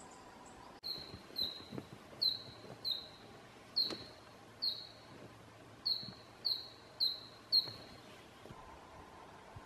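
A forest bird calling about ten short, sharp, high notes, each sliding quickly down, at an uneven pace of roughly one to two a second; they start about a second in and stop near the end.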